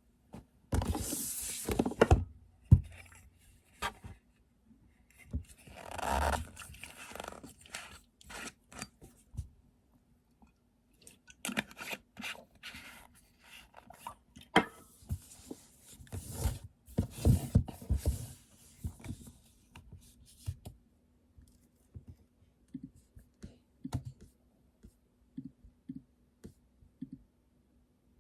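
Small objects being handled close by: irregular scrapes and rustles with sharp knocks, thinning out to a few light clicks in the last several seconds, over a faint steady hum.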